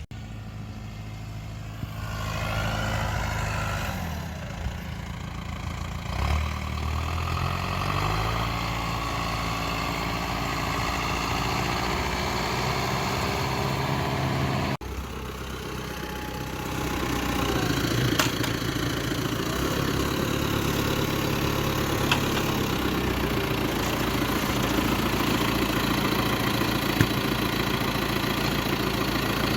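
Farm machine engine running while digging potatoes, its speed rising and falling in the first several seconds, then running steadily after a sudden break about halfway through.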